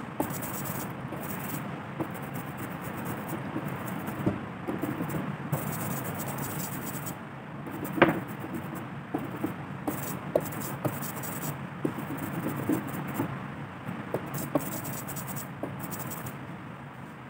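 Rubber ink roller rolling through sticky printing ink on an inking slab and over a carved wooden printing block: a steady rough, tacky hiss with scattered small clicks. One sharp knock about eight seconds in.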